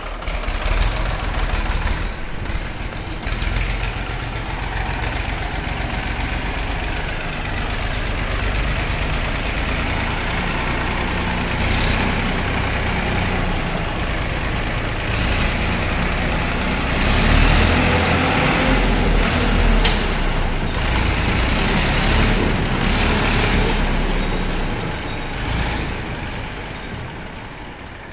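Farm tractor's diesel engine running as it is driven, a steady low rumble that grows louder about two-thirds of the way through and dies down near the end.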